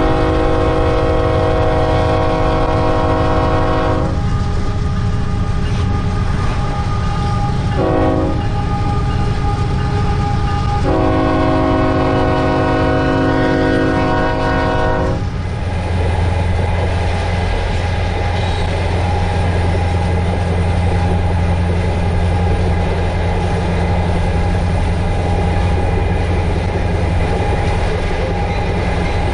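Union Pacific freight locomotive's multi-chime air horn sounding a long blast, a short one and another long one, the tail of a grade-crossing signal. Under it runs the steady rumble of the diesel engine and rolling freight cars. A little past halfway the horn stops and the sound changes to another freight train's steady low engine drone with wheel clatter.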